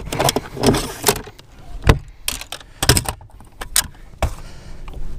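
Clacks and rattles of a plastic bump board, a fish-measuring board, being pulled out and handled on a boat deck: a run of sharp knocks spaced irregularly.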